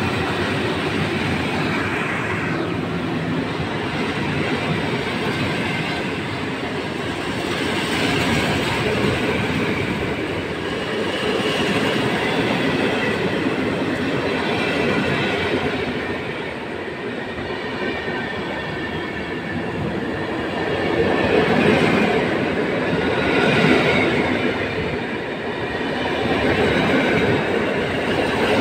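PKP Intercity passenger coaches hauled by an EP07 electric locomotive rolling past along the platform: a steady running noise of wheels on rail that swells and eases in loudness as the coaches go by.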